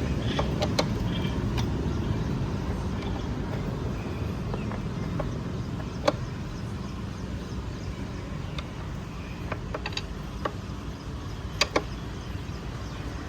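Scattered sharp metallic clicks and clinks from a spanner tightening the brake caliper's bolts on a motorcycle's front disc, over a steady low background rumble.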